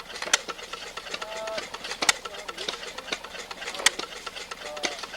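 Mechanical clatter of a running machine: rapid light clicking, with a sharper click about every second and three-quarters.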